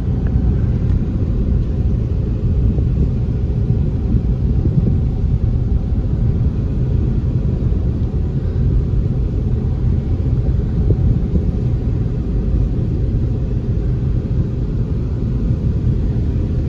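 Steady low rumble of a car driving, with road and wind noise.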